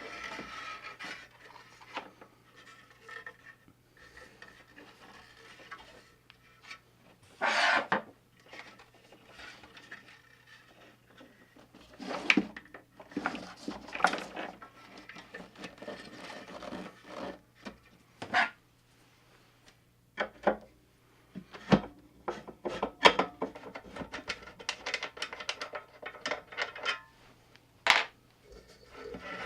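Hands-on work on a guitar amplifier: irregular scraping and rubbing with sharp clicks and knocks of tools and parts being handled, over a faint steady low hum.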